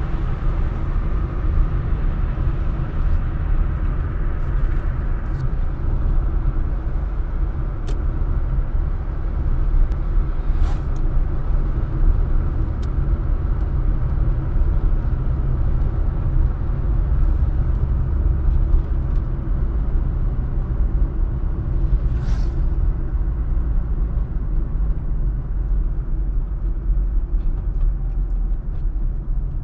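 Car cabin noise while driving on an asphalt road: a steady low rumble from the engine and tyres, with a few faint clicks and a brief hiss about two-thirds through.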